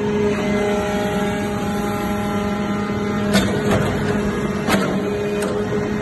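Hydraulic briquetting press for aluminium scrap chips running: a steady hum from its hydraulic power unit. From about half a second in to about three seconds in a higher whine of several tones sounds over the hum, then a few sharp metallic knocks follow.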